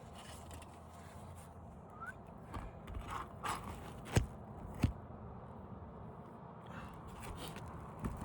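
A handful of sharp knocks and scrapes from hand work on an asphalt shingle roof while a shingle is being replaced. The two loudest knocks come about halfway through.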